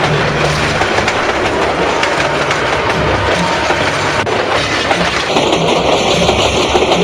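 Passenger train running past close by, a loud, steady rush of wheel and rail noise.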